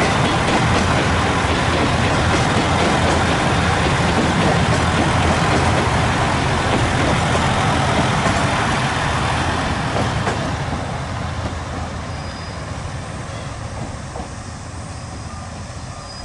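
Chizu Express HOT7000 'Super Hakuto' diesel express train passing close by and pulling away, its engines and wheels on the rails making a loud, steady noise. The noise fades from about ten seconds in.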